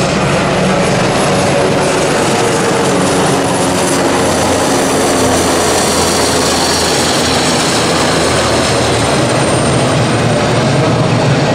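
Airbus H225M Caracal twin-turbine helicopter flying close past: loud, steady rotor and engine noise with a high turbine whine that slowly shifts in pitch as it goes by.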